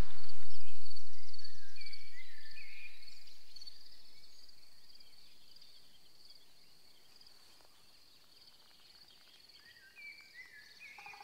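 Countryside ambience: a steady, high, pulsing insect trill, like a cricket's, with short bird calls a few times near the start and again near the end.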